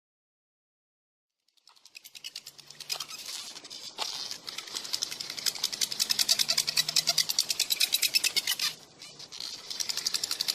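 After a second and a half of dead silence, a high-pitched buzz sets in, pulsing rapidly and evenly and dropping away briefly near the end.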